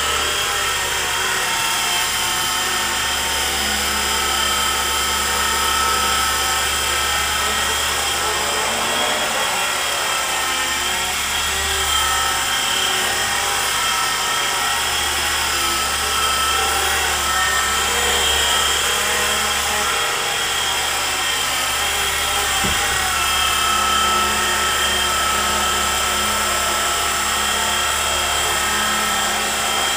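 E-flite SR120 micro RC helicopter flying indoors: a steady high electric-motor whine with rotor buzz, its pitch wavering slightly as the throttle and tail rotor are worked.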